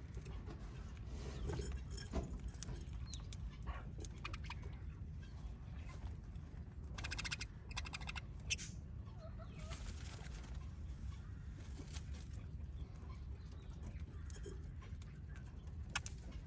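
Birds calling now and then, one clear pitched call about seven seconds in, with scattered small clicks and taps as they peck at seed, over a low steady background rumble.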